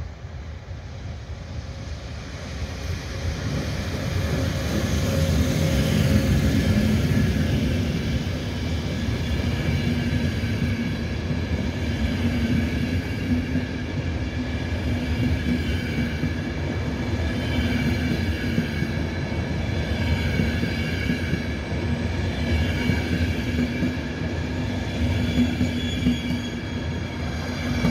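ÖBB Nightjet sleeper train passing at slow speed: the electric locomotive goes by loudest about five to seven seconds in, then a long line of coaches rolls past with a low wheel rumble and a steady high squeal from the wheels.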